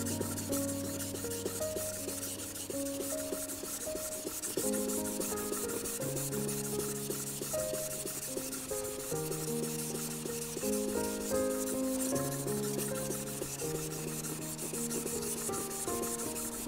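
Warikomi santoku kitchen knife being sharpened on a wet whetstone: the blade is stroked rapidly back and forth, making a steady, high-pitched rasping scrape. Soft background music with a slow melody of held notes plays underneath.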